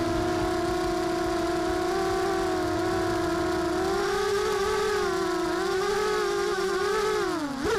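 A 250-size FPV racing quadcopter's electric motors and propellers whining steadily, the pitch wavering slightly as the throttle changes. At the very end the pitch dips and then swings up sharply.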